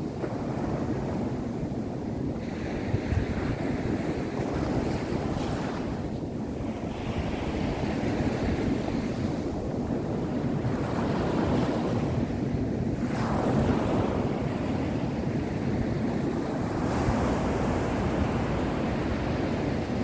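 Small waves breaking on a sandy beach and washing up the shore, a continuous surf rush that swells and eases every few seconds.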